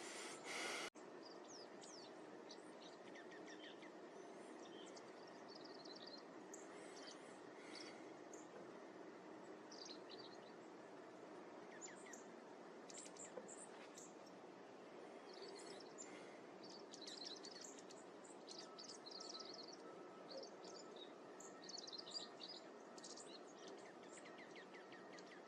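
Small songbirds giving many short, high chirps, scattered and irregular, over a steady faint background hiss. A louder rush in the first second cuts off abruptly.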